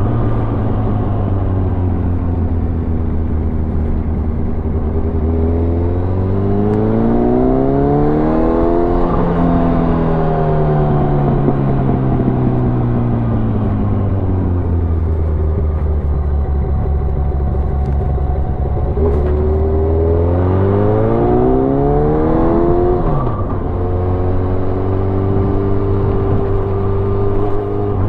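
Motorcycle engine heard from on board, running at a steady pace, then climbing in revs for a few seconds before the revs drop sharply about nine seconds in. The pitch then sinks slowly, climbs again, drops sharply once more a few seconds before the end, and settles back to a steady pace.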